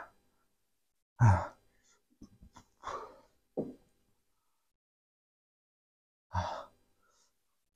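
A man's short vocal reactions to a very sour taste: a brief exclamation about a second in and another near the end, with a few soft mouth and eating noises in between.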